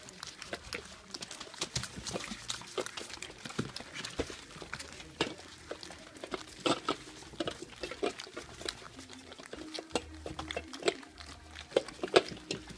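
A litter of three-and-a-half-week-old Stabyhoun puppies eating together from a dish: many quick wet smacking and lapping clicks, irregular and overlapping throughout.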